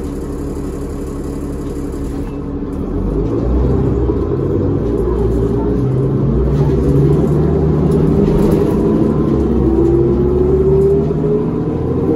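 Cummins ISL diesel engine of a New Flyer D40LF transit bus, heard from inside the cabin: idling for about two seconds, then louder as the bus pulls away, its pitch rising as it accelerates.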